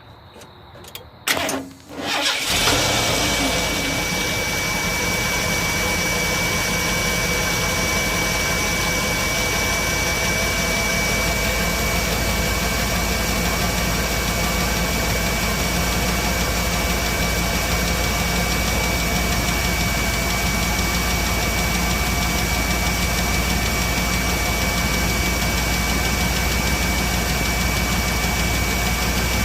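Ford 4.9 L (300 cubic inch) inline-six cranks briefly and starts about two seconds in, then idles steadily. The engine has a bad lifter.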